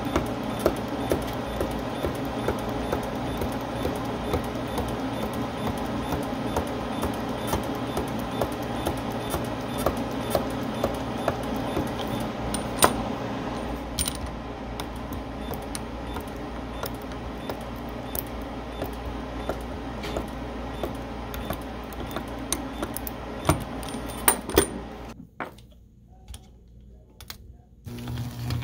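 Capacitor-discharge resistance welder firing rapid repeated weld pulses through a roll-spot wheel electrode rolling across thin stainless steel sheet and mesh: an even train of sharp clicks, several a second, over a steady hum. The clicking stops about 25 seconds in, and a low hum starts near the end.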